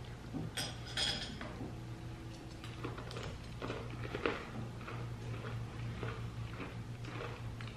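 Candy-coated chocolates clicking faintly as they are handled, then soft scattered crunches as their crisp shells are chewed, over a low steady hum.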